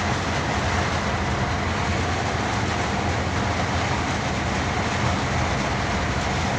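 Hino truck's diesel engine running steadily under way, with the rumble and rattle of the cab on a rough dirt road, heard from inside the cab.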